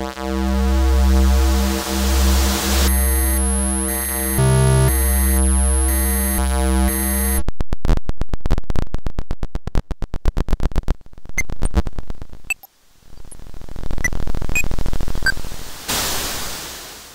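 Electronic arrangement of simple synthesized waveforms: a low drone under stacked steady tones that step in pitch, with hiss over them. About halfway through it breaks into rapid regular pulsing, then thins to faint noise with scattered blips and a swell of hiss that fades out at the end.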